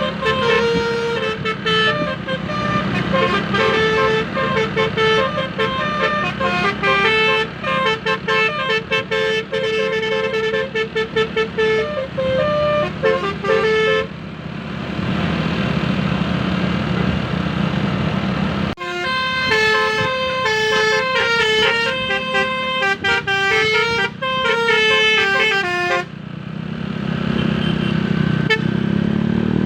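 Basuri multi-tone "telolet" car horn playing a quick melody of short notes over steady engine and road noise. The tune stops for about four seconds near the middle, leaving just the engine and road noise, then plays on and breaks off again near the end.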